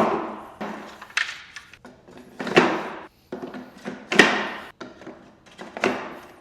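Spider Rack drying-rack arms being snapped into place one after another as the rows are stacked: about five sharp knocks a second or more apart, with lighter clicks in between.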